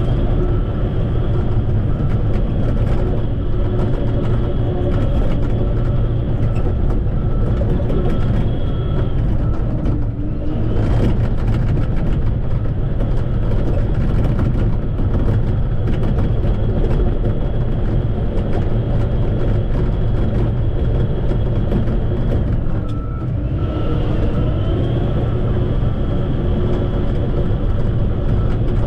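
Shantui bulldozer's diesel engine running steadily under load, with a high whine over the engine. The whine drops out briefly about ten seconds in and again about twenty-three seconds in, then rises back.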